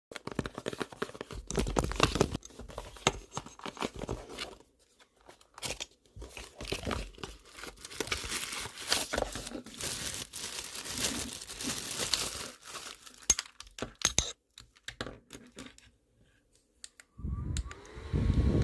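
Packaging tearing and crinkling in irregular bursts. About a second before the end, an electric fan switches on and runs with a steady hum.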